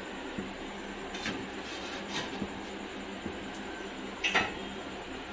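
Steady low kitchen hum with a few light clinks of steel kitchenware, and a louder clatter about four seconds in, as a steel plate is set over a bowl beside the stove.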